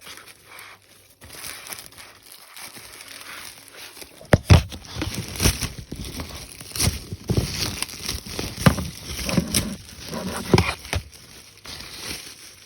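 Plastic crinkling and rustling with irregular sharp clicks and knocks, as Lego pieces and packaging are handled. It starts quietly and gets busier about four seconds in.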